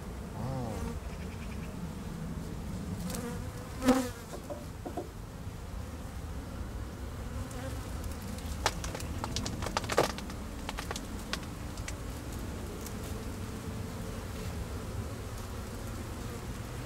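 Honeybee colony buzzing steadily in an open hive, the bees agitated and defensive. A few sharp knocks and cracks come from the hive tool prying the straw mat cover loose from the frames, the loudest about four seconds in and two more around eight to ten seconds.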